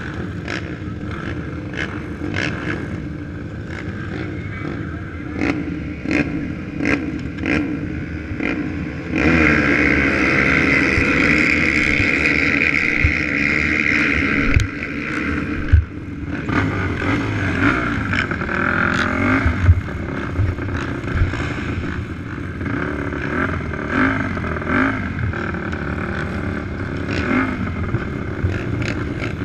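Racing ATV engines idling and blipping their throttles on a starting line. About nine seconds in, a nearby engine is held at higher revs for about five seconds before dropping back.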